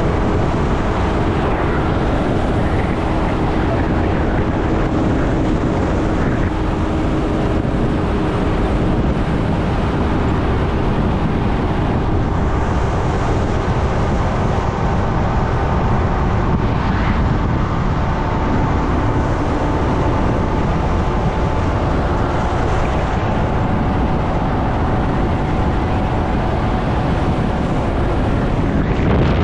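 A vehicle driving along a road: steady engine and road noise with a low rumble and a faint steady hum.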